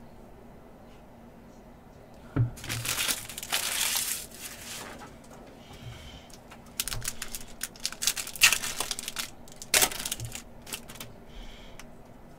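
Foil trading-card pack wrapper being torn open and crinkled by hand. It follows a light knock about two seconds in, and a second spell of crinkling and tearing with a couple of sharp snaps comes later.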